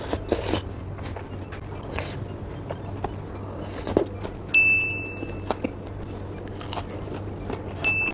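Close-miked mukbang eating sounds: crunching bites and mouth clicks of battered, deep-fried quail eggs (kwek kwek) being chewed. A short steady high tone sounds about four and a half seconds in, and briefly again near the end.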